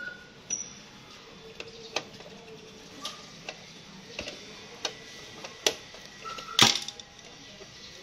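Screwdriver and screw clicking and clinking against a sheet-metal cover at the back of a refrigerator as a screw is worked in by hand: about half a dozen irregular sharp clicks, the loudest a rattling knock near the end.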